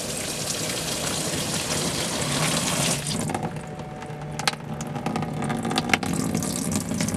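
Water from the live well pump's fill pipe pouring in a steady stream and splashing onto the floor of the empty plastic live well tank as it begins to fill.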